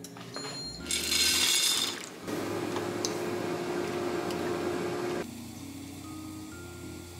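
A saucepan of pasta boiling on the stove, stirred with a wooden spoon from just after two seconds until about five seconds in. It is preceded by a sharp hiss lasting about a second.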